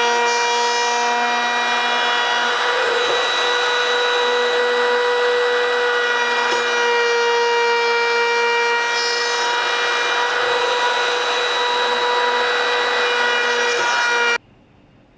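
Electric router with a dovetail bit running at speed and cutting a sliding-dovetail slot in a hardwood desktop: a steady high whine over the noise of the bit chewing through wood. It cuts off suddenly near the end.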